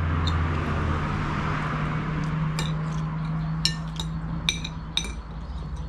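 A spoon clinking against a plate several times during a meal, over a steady low hum.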